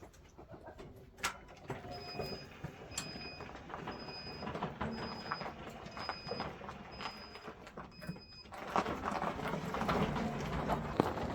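A short, high electronic beep repeating seven times at just under one-second intervals over clattering and knocking; near the end the beeping stops and a louder rumbling clatter with a low hum takes over.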